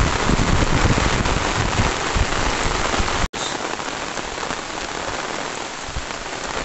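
Heavy rain pouring steadily, with a brief sudden dropout about three seconds in.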